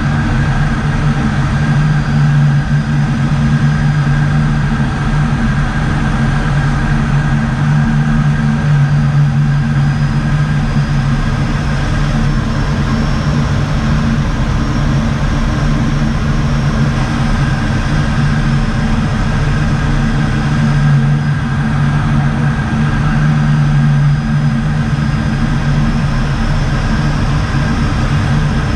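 Steady drone of the ATR 72-600's two turboprop engines and propellers, heard inside the cockpit on final approach. A strong low hum is joined by fainter, higher steady tones.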